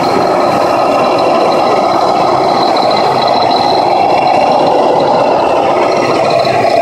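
Radio-controlled scale model trucks and work machines running, a steady mechanical hum with a thin high whine from their small motors and gearboxes.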